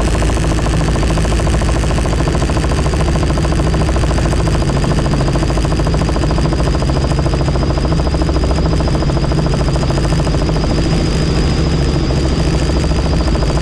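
Helicopter in flight, running steadily: a fast, even rotor beat over engine noise, with a steady high whine.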